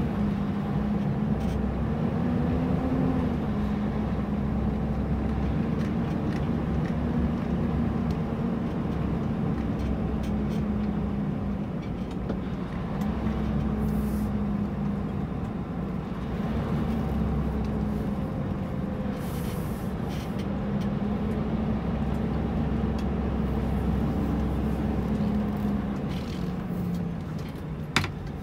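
Scania R730's V8 diesel running under way, a steady drone that wavers up and down in pitch. Near the end the pitch falls and the sound eases off a little, followed by a single sharp click.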